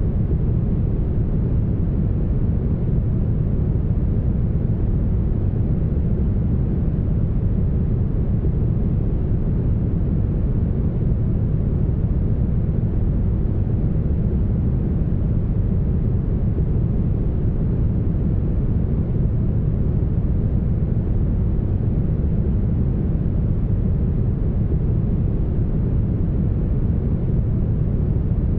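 Steady, heavily smoothed brown noise: a deep, even rumble-like hiss with most of its weight in the bass and very little treble, unchanging throughout.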